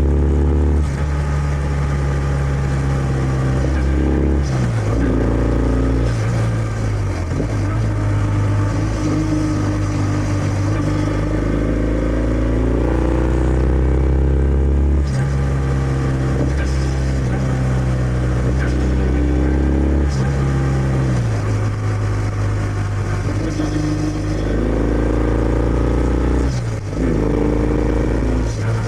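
Kawasaki W650's air-cooled parallel-twin engine through its stock exhaust while riding. The note climbs in pitch several times as the bike accelerates, drops at each gear change, and holds steady in between while cruising.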